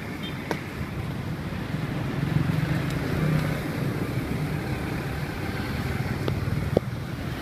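Street traffic rumble, motor vehicle engines running close by. It swells for a moment a couple of seconds in, with a few sharp clicks over it.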